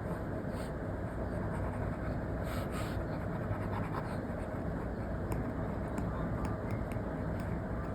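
Apple Pencil tip scratching and tapping in short strokes on an iPad's paper-like matte screen protector, over a steady low hiss.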